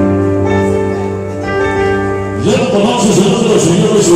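Recorded music played over a sonidero DJ's sound system. Held chords sound for the first two and a half seconds, then the music switches suddenly to a denser, noisier passage with bright hits.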